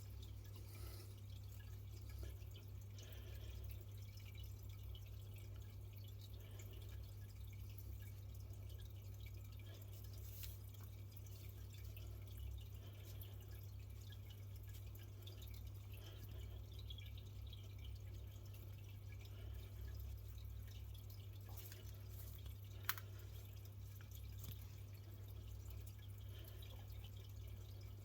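Faint low steady hum with quiet rustling of paracord being pulled and tightened through cobra knots by hand, and one sharp click about 23 seconds in.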